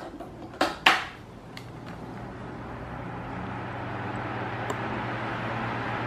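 Two clicks as a Mondial Maxi Power Black 40 (140 W) fan is switched on at its lowest speed, then the fan spinning up: a steady motor hum under a rush of air that slowly grows louder.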